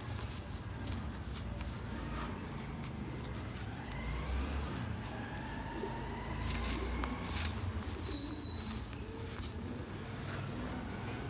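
Dry red dirt clods crushed and crumbled by hand, with loose soil crunching and trickling through the fingers, over a steady low rumble. Birds call in the background, with a few short high chirps near the end.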